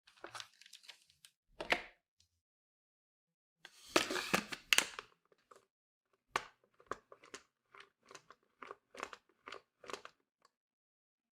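Handling noises: a crinkling rustle near the start and again a few seconds in, then a run of short sharp clicks, about three a second.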